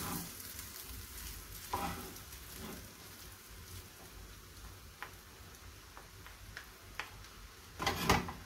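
Stir-fried noodles with shrimp and vegetables being tossed in a metal pan with two wooden spoons, the spoons scraping and knocking against the pan over a faint sizzle. A few louder knocks come about two seconds in and near the end.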